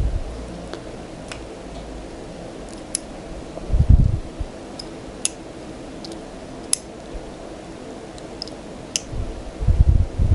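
Small metallic clicks of jewelry pliers working a tiny metal jump ring, spaced a second or two apart. Dull handling knocks come about four seconds in and again near the end, over a steady low hum.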